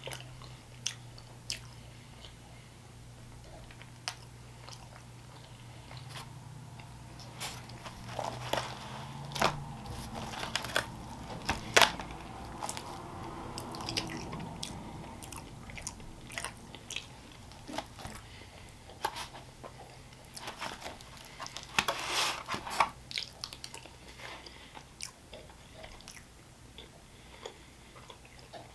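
A person chewing disco fries (fries with melted mozzarella and gravy) close to the microphone: wet chewing, lip smacks and bites. The bites are louder and come in clusters, most densely around a third of the way in and again about three-quarters of the way through.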